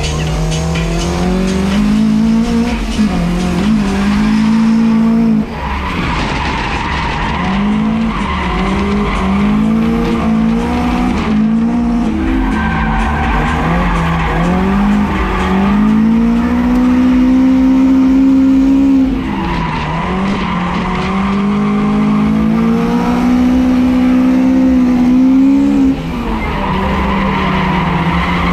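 Toyota AE86 Corolla drift car's engine held high in the revs, rising and falling with the throttle, over the squeal of tyres sliding sideways. The revs drop briefly three times, about five, nineteen and twenty-six seconds in, then climb again.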